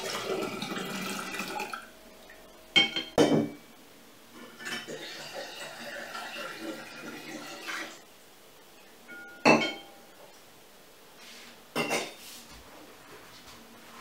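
Fermented apple juice poured in a stream into a glass jar, then two sharp clinks of a metal strainer and cup against the glass. A second, quieter pour follows, and then two more single knocks of kitchenware set down on the table.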